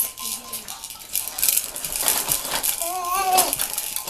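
Baby jumper rattling and clicking as a baby bounces in it, its toys and frame knocking in quick irregular clatters. A short voice sounds about three seconds in.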